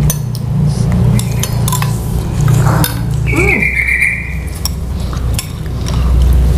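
Steady low machine rumble and noise from work going on nearby, with spoons clinking against soup bowls. A shrill, slightly falling tone lasts about a second, about three seconds in.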